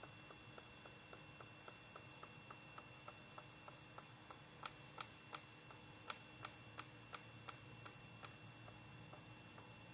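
Faint, regular clicking from a hospital machine, about three clicks a second, louder for a few seconds in the middle, over a steady faint electronic whine and hum.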